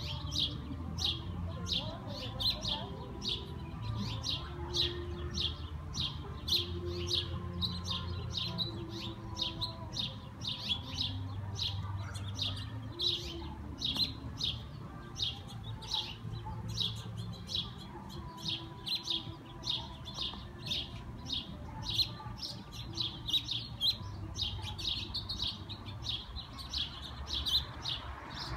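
A flock of small songbirds, sparrows and red-headed house finches, chirping without a break, about three short chirps a second, over a faint low background rumble.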